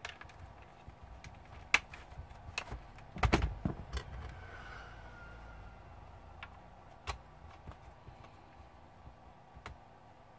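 Scattered light clicks and taps, with a short burst of louder knocks about three seconds in: the plastic and metal parts of a laptop being handled and fitted together during reassembly.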